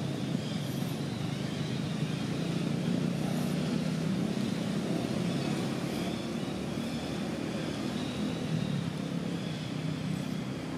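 Steady low engine rumble of motor traffic, with no change over the whole stretch.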